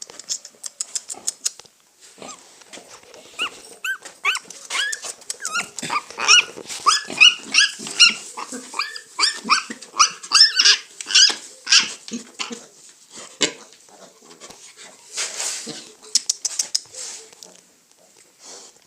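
Piglet squealing: many short, high calls in quick succession for several seconds, followed by a brief rustle near the end.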